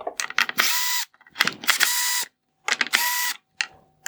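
Cordless electric screwdriver backing out Phillips head screws from the headlight housing's bottom corner mounts: three short runs of the motor, each spinning up quickly to a steady whir, with small clicks of the bit and screws between.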